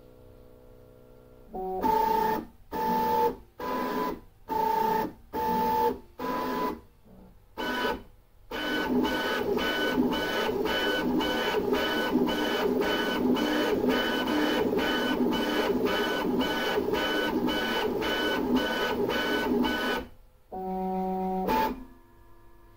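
K3+ 3D printer's stepper motors whining through fast toolhead moves. A string of short pitched bursts comes about once a second, then a long run of quick, evenly spaced pulses about two or three a second, then one last burst near the end.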